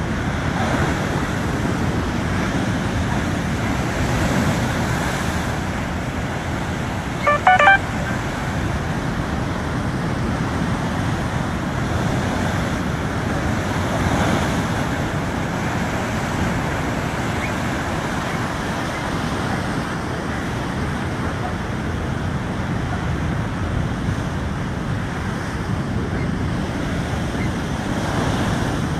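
Steady rushing noise of water and wind on the microphone. About seven seconds in, a short pitched call or honk sounds briefly.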